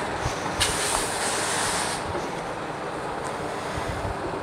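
Steady wind noise rushing over the microphone, with a brighter hiss for about a second and a half near the start.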